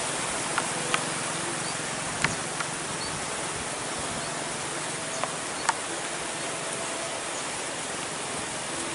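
Steady outdoor hiss of wind over open, rippling water, with a few short ticks about half a second, one second, two seconds and near six seconds in.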